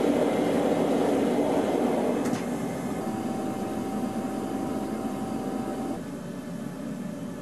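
A machine running with a steady rumbling noise, loudest in the first two seconds, with a steady hum that joins about three seconds in and cuts off about six seconds in.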